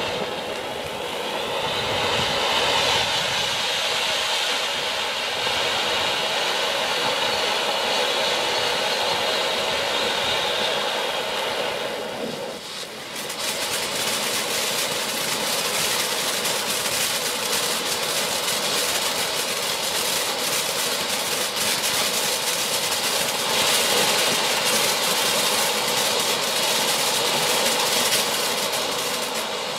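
Sunwing 'Classy' ground fountain firework spraying sparks with a steady hissing rush. About twelve seconds in it dips briefly, then comes back with dense crackling over the hiss.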